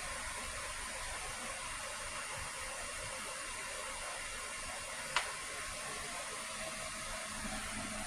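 Steady background hiss with no clear source, broken once by a single sharp click about five seconds in.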